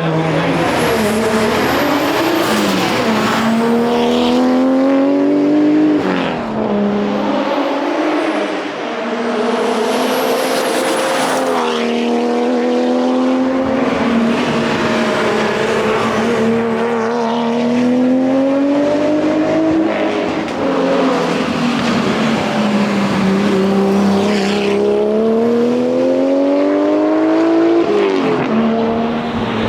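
Nissan R33 Skyline GT-R's twin-turbo RB26DETT straight-six driven hard at race pace. Its pitch climbs steadily through each gear and drops sharply at the upshifts, several times.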